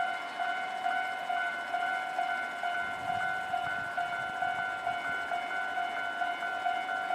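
Japanese railway level-crossing warning bell ringing in a steady, rapid rhythm of repeated electronic dings. About three seconds in, a low rumble from a train joins it.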